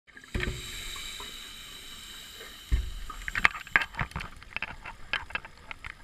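Scuba diver breathing through a regulator underwater: a steady hiss of an inhale starts suddenly about half a second in and fades, then an exhale near three seconds bursts into a rush of crackling, popping bubbles.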